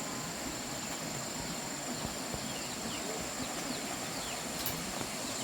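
Outdoor rural ambience: a steady high-pitched insect drone over a constant hiss, with many faint short bird chirps and a few small clicks.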